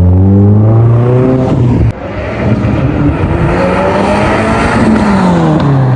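Car engine running and revving, its pitch rising and falling, with an abrupt cut about two seconds in before it builds again.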